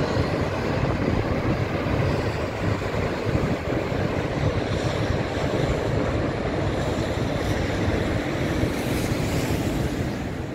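Niagara Falls: a steady, dense rush of water plunging into the gorge, with a heavy low rumble and wind noise on the microphone.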